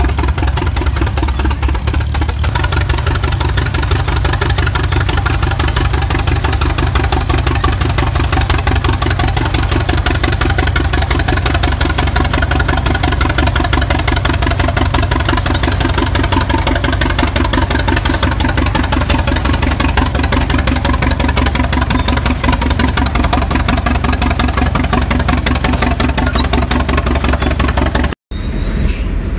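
Engine of a vintage Holt crawler tractor running steadily, with an even, rapid firing beat. The sound drops out for an instant near the end.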